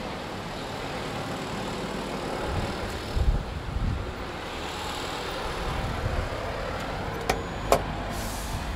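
Steady outdoor urban background noise with a low hum of traffic, with a few low thumps about three seconds in. Near the end come two sharp clicks a moment apart as the elevator's call button is pressed.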